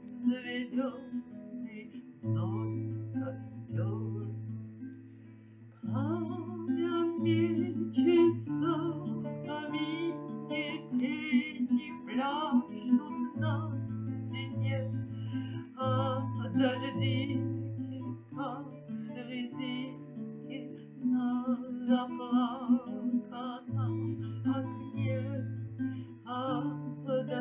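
Music: an acoustic guitar playing over long held bass notes, with a wavering melody line above, in a slow romance.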